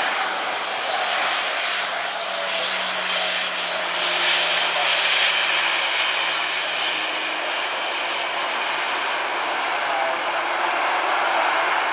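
Southwest Boeing 737-800's CFM56 turbofan jet engines running as the airliner rolls along the runway: a steady rushing jet noise.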